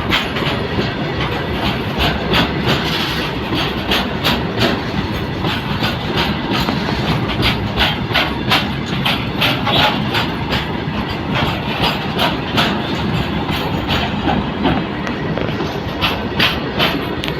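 Goods train running along the track: a steady rumble with repeated clicks of wagon wheels over rail joints.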